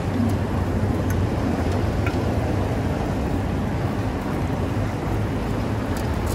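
Steady wind rush over the microphone of a moving bicycle, a low rumbling haze, with faint rattles from the bike.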